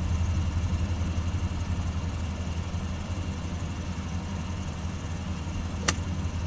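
Steady low rumble, with one sharp crack about six seconds in: a golf club striking the ball.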